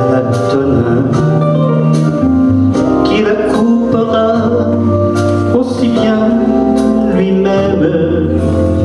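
A man singing into a microphone through the hall's sound system, over an instrumental accompaniment with a bass line that steps from note to note.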